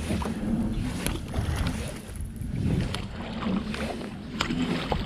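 Water sloshing around a kayak with wind on the microphone, and a few light knocks.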